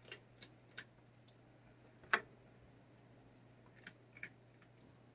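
Faint, scattered short clicks over a steady low hum: three in the first second, a louder one about two seconds in, and two more near four seconds.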